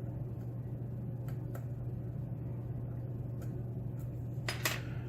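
Faint, sharp metallic clicks of a lock pick probing the pins inside a Schlage pin-tumbler lock, a few scattered ticks with the loudest pair about four and a half seconds in, over a steady low hum.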